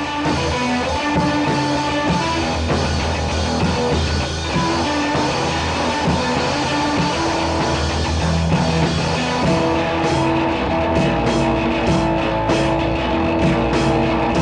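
Rock music with electric guitar and a drum kit, loud and steady, with sharper drum hits from about two-thirds of the way in.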